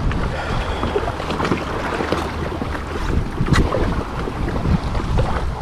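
Wind buffeting the microphone over the wash and splash of open sea water around a kayak on the move, with a few sharper splashes, the loudest about three and a half seconds in.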